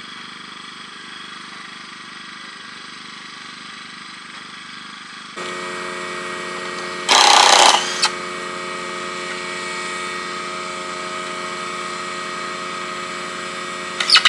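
An engine or motor running steadily, with a loud power-tool burst of about a second about seven seconds in and a shorter burst near the end.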